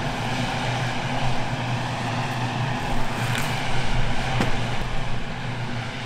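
Bentley Continental GT's W12 engine idling with a steady, even low drone. A single sharp click comes about four and a half seconds in.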